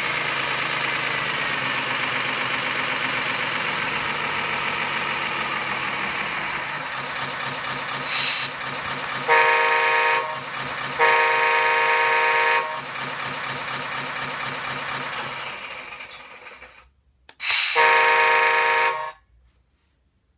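A Servonaut RC sound module in a Scania R620 model truck plays a sampled V8 diesel engine running, its pitch falling back at first. Two loud air-horn blasts sound about nine and eleven seconds in. The engine then winds down and stops, and one more horn blast follows near the end.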